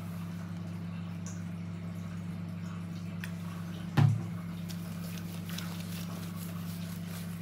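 A hand rubbing a wet cat's soaked fur, faint squishing, over a steady low hum, with a single sharp knock about four seconds in.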